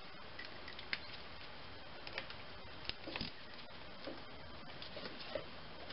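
Scattered light clicks and taps of a hand tool working the 8 mm bolt on a battery cable terminal as it is tightened down, over a faint steady hiss.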